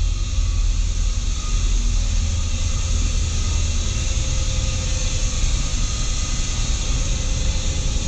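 Steady running noise of building ventilation equipment: a deep rumble with a broad hiss of moving air over it and a few faint steady tones.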